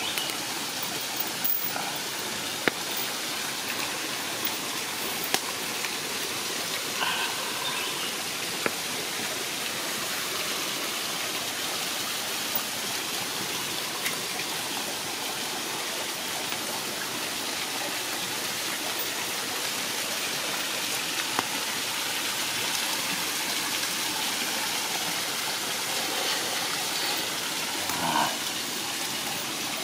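Steady rush of a small jungle stream running over rocks, with occasional sharp clicks.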